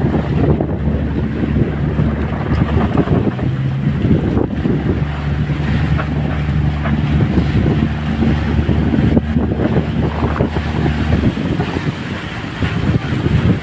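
A boat's engine runs with a steady low hum while wind buffets the microphone. The engine hum drops away about eleven seconds in, leaving the wind rumble.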